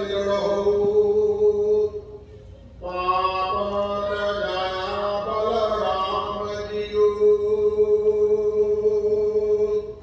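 Kirtan: a Sikh hymn sung in long, held notes over a steady low tone. The phrase breaks off about two seconds in, resumes, and ends just before the close.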